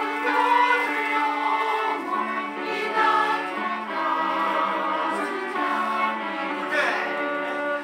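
Church choir singing a hymn in harmony, in long held notes that change about every second.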